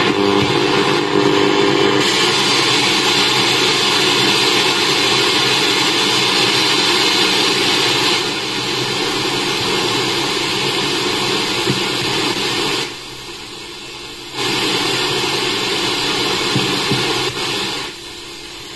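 Static hiss from a Sony WM-FX101 Walkman's FM/AM radio with no clear station coming in. The hiss dips for a second and a half about two-thirds of the way through and drops again near the end. The tuner cannot pull in FM because the earphone wire, which serves as its antenna, is too short.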